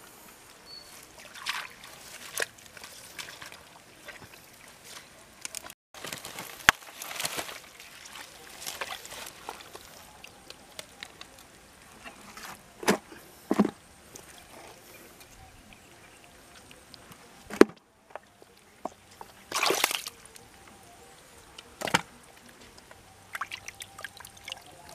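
Bare hands scooping and squelching through wet mud and muddy water in a dug hole, with irregular sloshes, slaps and sharp clicks.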